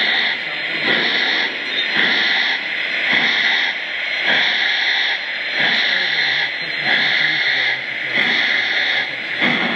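Lionel O gauge Southern Pacific GS-4 #4449 model steam locomotive's sound system giving rhythmic hissing steam chuffs, about one a second, as the engine runs.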